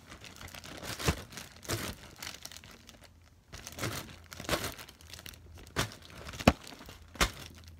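Thin clear plastic bag crinkling and crackling as it is pressed and pulled to work sticky slime out of it, with sticky peeling sounds. The crackles come in irregular bursts, with a short pause about three seconds in and one sharp crack near the end.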